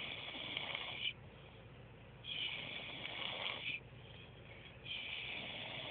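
A man snoring in deep, passed-out sleep: three long snores about two and a half seconds apart, with quieter breaths between.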